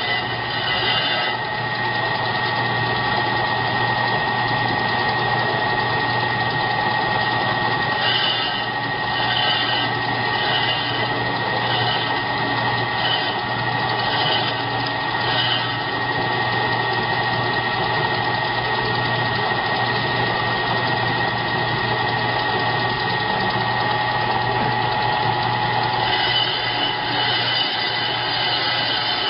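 LY9365 brake lathe running with a steady motor hum and a constant high whine. A harsher high-pitched sound pulses in and out about one and a half times a second through the middle stretch and again near the end.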